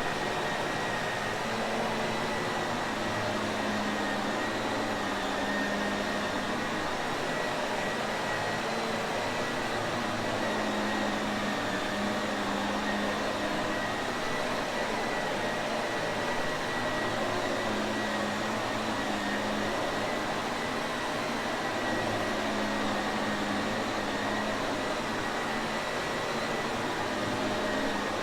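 Shark Navigator upright vacuum cleaner running steadily: an even rush of motor and airflow with a faint high whistle and a low hum, unchanging throughout.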